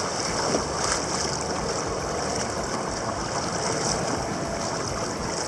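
Choppy seawater sloshing and splashing against a kayak right at the microphone, a steady wash of water noise.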